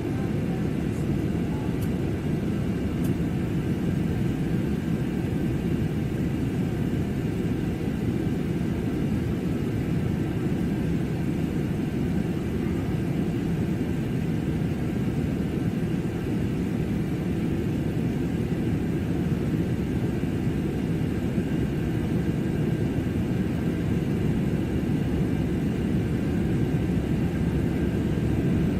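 Steady cabin noise of a passenger jet in cruise: the even rumble of engines and airflow, heaviest in the low range, with a faint steady hum above it.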